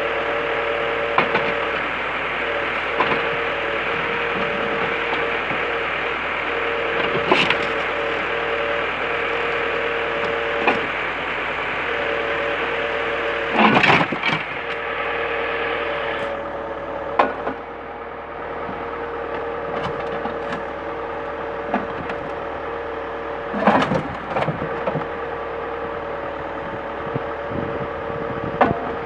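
Iveco crane truck's engine and hydraulic pump running with a steady whine, broken by about half a dozen sharp cracks and clanks as the orange-peel grab works over a scrapped car. The loudest come about 14 and 24 seconds in.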